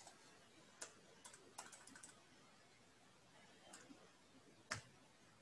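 Faint, scattered keystrokes on a computer keyboard: a few single taps, a quick run of keys about two seconds in, and one sharper key strike near the end.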